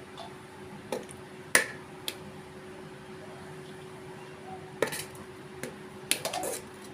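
A metal spoon knocking and scraping against a cooking pot as a layer of cooked rice is spooned in: a few separate sharp clinks, the loudest about a second and a half in, and a quick run of scrapes and taps near the end, over a steady low hum.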